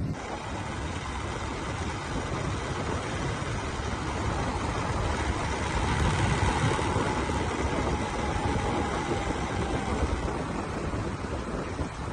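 Motorcycle engine running at a steady road speed, heard from a moving motorcycle, with a steady rush of road and air noise.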